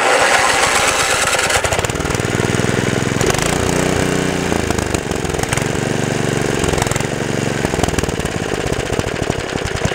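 Small gasoline engine running loudly with a rapid, rattling firing beat, its speed wavering up and down. It comes in suddenly at full level.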